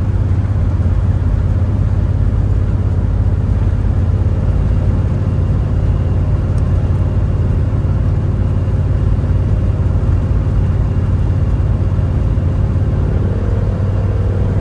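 Old camper's engine and road noise heard from inside the cab while cruising at a steady speed: a continuous low drone.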